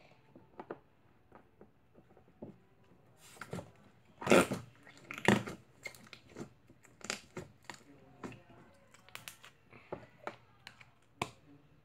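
Pink slime being stretched and squished in the hands, giving off a string of wet clicks, pops and crackles, with two louder squelches about four and five seconds in.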